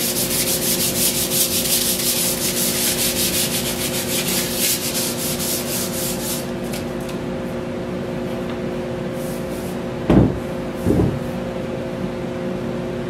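Light hand sanding of a stained, clear-coated wooden gate frame between coats of clear finish: quick, rhythmic back-and-forth scratching strokes that stop about six and a half seconds in. Two thumps follow near the end as the wooden frame is handled, over a steady hum.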